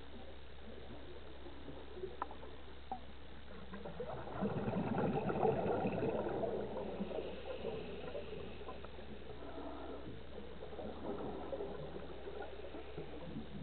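Muffled underwater gurgling of a scuba diver's exhaled bubbles, swelling about four seconds in and fading over the next three seconds, over a steady low hum.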